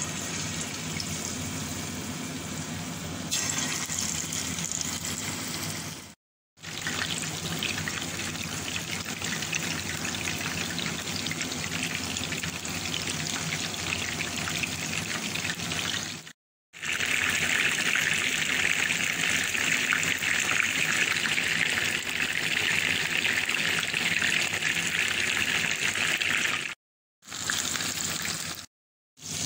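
Coated chicken pieces frying in hot oil in a pan: a steady sizzle that gets louder and brighter from a little past halfway as the pan fills. It is broken by a few brief silent gaps.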